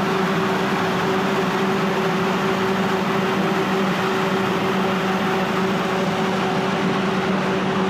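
Tractor-powered mini rice mill hulling paddy, running steadily: a loud, even mechanical drone with a constant low hum.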